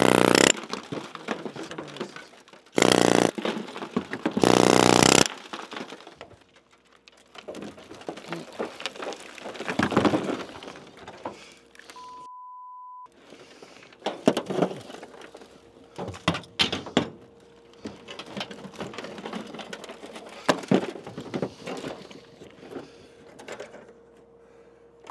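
Broken rock and dirt being scraped and shoved by hand across a car's steel roof, with scattered knocks and clatters of falling chunks; three loud harsh bursts come in the first five seconds. About halfway through, a one-second censor bleep.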